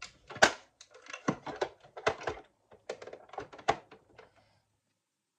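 Irregular clicks and knocks of a sewing machine's plastic levers and parts being worked by hand, stopping about four and a half seconds in.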